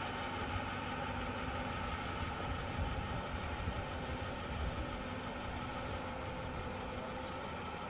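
Steady machine hum: several steady tones over a low rumble.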